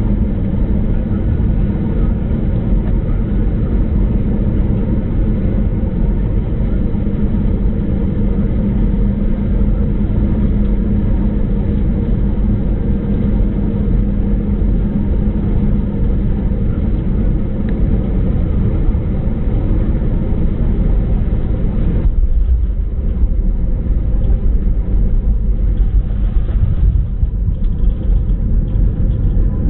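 Cabin noise of an Airbus A319 on final approach and landing: a loud, steady rumble of engines and airflow with a steady hum. About two-thirds of the way through, the higher part of the noise drops away abruptly while the low rumble goes on.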